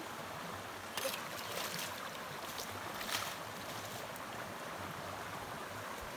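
Steady rushing of a shallow, muddy stream running over rocks, with a couple of brief sharp sounds about one and three seconds in.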